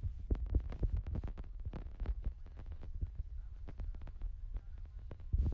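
Handling noise on a phone's microphone: low thuds and a steady run of short clicks and rubbing as the phone is held and shifted close to the face.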